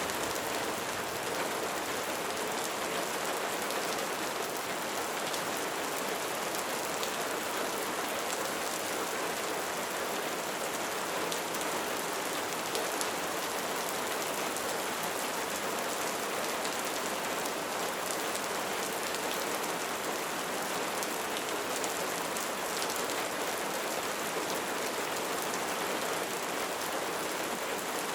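Light rain falling steadily, a soft even hiss with faint drop patter.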